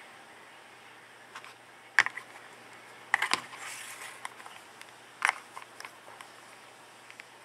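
A few sharp mechanical clicks, one about two seconds in, a quick cluster a second later and another near five seconds, over a low room background.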